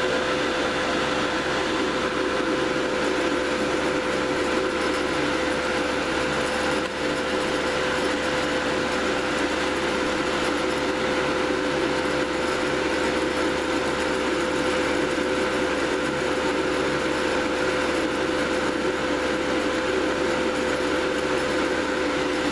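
Cooling fans forcing air through a GS-35B triode's finned anode cooler, a steady whirring hiss with a constant whine. The fans are running at about 15.6 volts, above their 13.8-volt rating.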